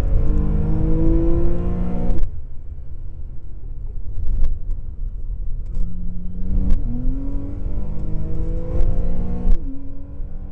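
Porsche 997.2 Carrera 4S's 3.8-litre flat-six, heard from inside the cabin, pulling hard with rising revs, then going suddenly quieter as the throttle is lifted about two seconds in. About six seconds in it picks up again and the revs climb, with a gearshift near the end dropping the pitch.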